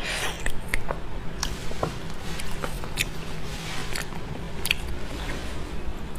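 Close-up wet chewing and biting of beef bone marrow: soft, squishy mouth sounds with scattered sharp clicks.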